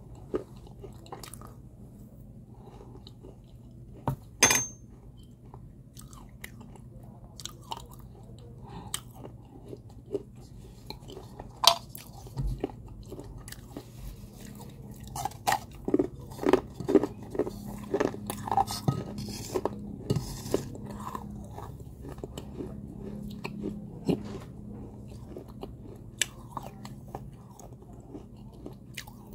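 Biting and chewing of unglazed fired terracotta pottery coated in wet clay paste: a string of sharp crunches and clicks, with a loud snap about four seconds in, another about twelve seconds in, and a dense run of crunches in the middle stretch.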